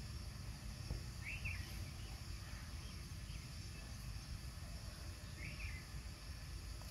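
Outdoor rural ambience: a steady high drone of insects over a low rumbling noise, with a bird giving a short call about a second and a half in and once more later.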